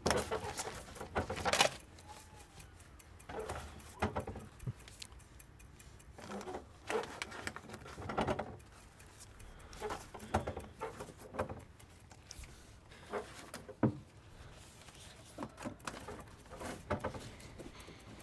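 Irregular rustling and clattering, the loudest in the first two seconds and the rest scattered at uneven gaps: post being pushed through a letterbox and dropping onto the hall floor.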